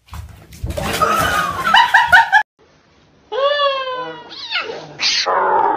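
A domestic cat meowing: a quick run of short meows that rise and then fall in pitch, a little over halfway through. They follow a loud, noisy stretch in the first two seconds.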